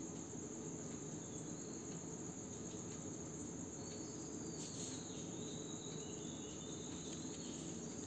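Faint background sound: a steady high-pitched trill, like insects, over a low hum.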